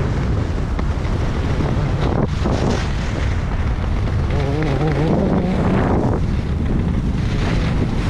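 Heavy wind noise buffeting the microphone at skiing speed, a steady loud rush with no pauses.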